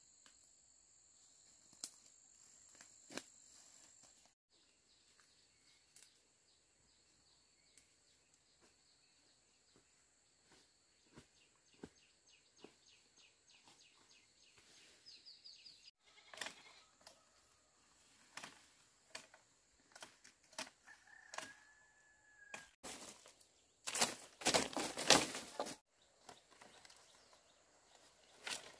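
Insects buzzing steadily at a high pitch, with scattered light clicks and rustles of leaves and twigs. Near the end, a loud rustling of leafy cut branches for about two seconds.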